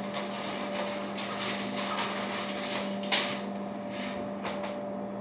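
Aluminium foil crinkling and crackling as it is peeled off a foil baking pan, with one sharp knock about three seconds in.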